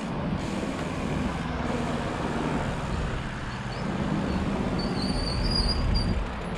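Steady road traffic noise, a low continuous rumble, with a faint high tone for a moment about five seconds in.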